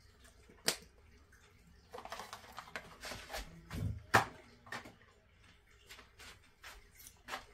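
Small makeup items being handled and set down on a vanity desk: a sharp click under a second in, some rustling, a louder knock about four seconds in, then a few lighter taps.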